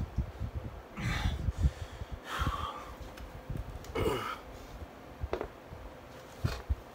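A man breathing hard while doing sit-ups: four forceful gasps or exhalations, one every second or two, over low rustling and bumping of his body moving on the floor.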